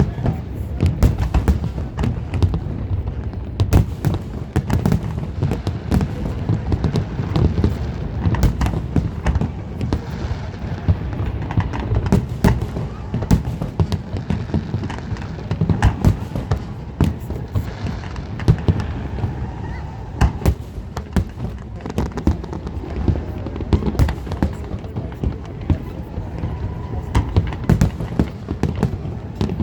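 Aerial fireworks shells bursting in a dense, continuous barrage: loud booms and sharp bangs several times a second over a constant rumble.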